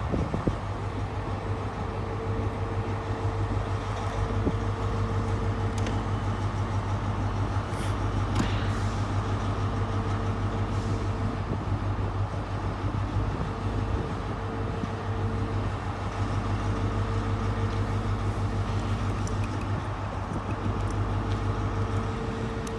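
Class 43 diesel power car of a GWR 'Castle' HST idling at a standstill: a steady, unchanging low engine drone with a constant hum.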